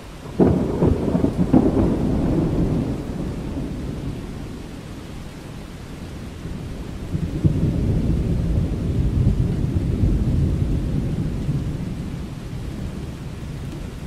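Thunder in a summer rainstorm: a sudden sharp crack about half a second in, with crackling that rolls away over a few seconds, then a second, deeper rumble that swells about seven seconds in and fades slowly, over steady rain.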